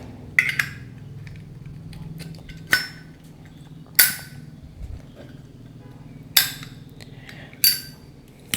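Sharp metallic clicks and clinks of a Zippo lighter's steel case as the butane torch insert is pushed back in and the case is handled: about six clinks a second or two apart, several ringing briefly.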